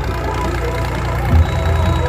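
Background music with a steady beat, over a tractor engine running as the tractor spins in tight circles.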